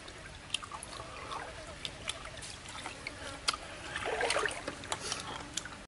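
Small sharp clicks of a cooked river snail shell being picked at with a thin stick while it is eaten, with a louder, denser patch of handling and eating noise about four seconds in, over a steady stream trickle.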